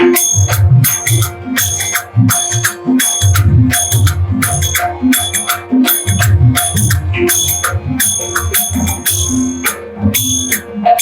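Devotional kirtan accompaniment: a drum keeps a steady beat, with sharp metallic jingling strokes falling on the beat over sustained held notes.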